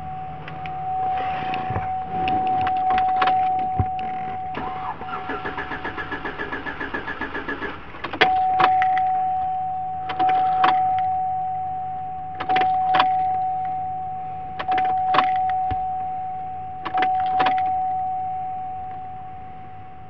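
A steady high electronic tone, like a dashboard warning chime in a GMC SUV's cab, sounds through most of the stretch. About five seconds in it is broken by a rapid run of even ticking lasting about three seconds, and after that by pairs of sharp clicks roughly every two seconds.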